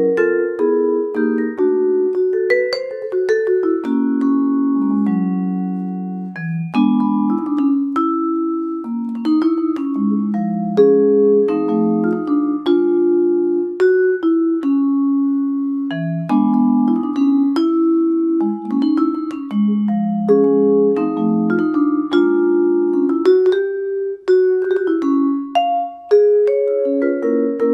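A solo Bergerault vibraphone played with four mallets. It plays chords under a melody line, and many notes ring on and overlap one another.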